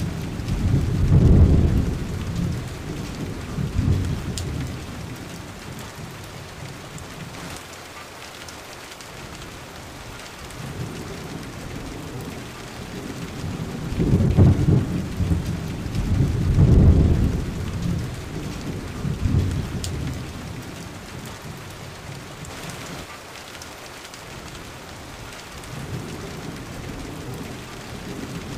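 Steady rain falling through a thunderstorm, with deep rolling thunder rumbles near the start and again about halfway through.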